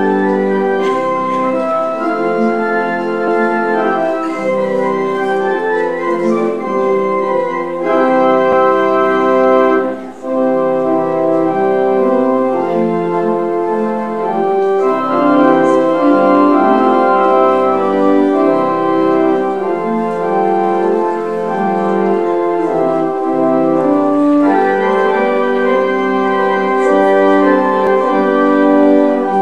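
Organ music played in sustained chords, with a brief break about ten seconds in.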